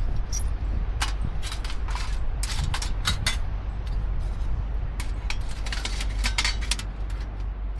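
Wind rumbling on the microphone, with a run of light clicks and clinks over it.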